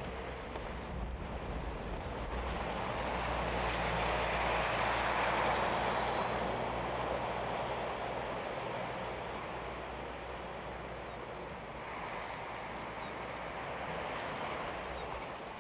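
City street traffic: a vehicle passing swells to a peak about five seconds in and fades away, then a second, smaller pass follows near the end, over a steady low hum.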